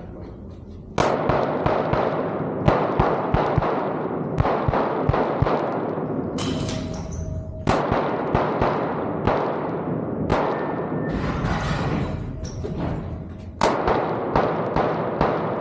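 Pistol shots fired in rapid strings during an action-pistol course of fire, each shot ringing out with a long echo. The first shot comes about a second in, and fresh strings start about halfway through and near the end.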